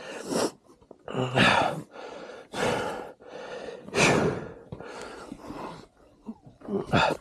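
A man breathing hard and loudly, a series of heavy breaths and sighs about once a second.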